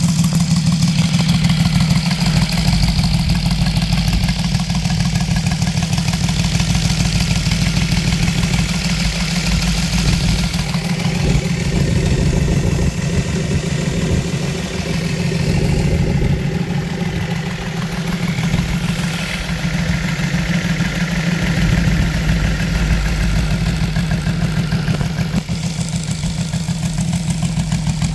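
Saito FS-60R3 three-cylinder four-stroke radial model aircraft engine, running on glow fuel, turning its propeller at a steady, even speed.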